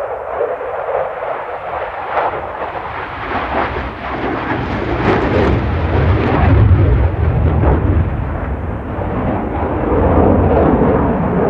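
Saab JAS 39C Gripen fighter's single Volvo RM12 jet engine roaring during a display pass, a loud rumble with crackling that swells about halfway through and again near the end.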